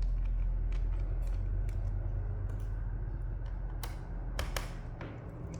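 Screws being turned out of a laptop's plastic bottom case with a small screwdriver: faint creaks and small scattered clicks, with a few sharper clicks about four seconds in, over a steady low hum.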